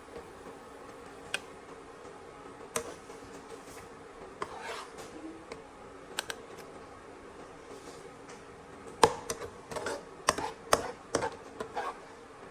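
Scattered clinks and knocks of kitchenware, such as utensils against pots and dishes, with a quicker run of knocks about nine to eleven seconds in, the loudest near nine seconds. A faint steady hum runs underneath.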